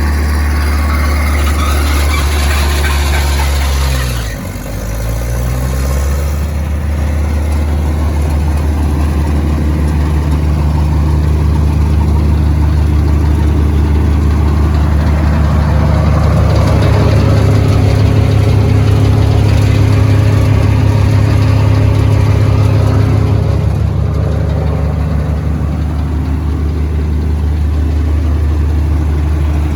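Diesel engine of a Vermeer BC150 wood chipper running steadily. About four seconds in, its speed dips sharply and picks back up, and a rushing hiss over the engine stops at that dip.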